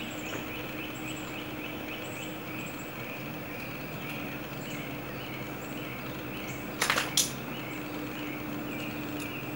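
Outdoor ambience: a steady low hum under a continuous high chirring background, broken about seven seconds in by a brief cluster of sharp clicks.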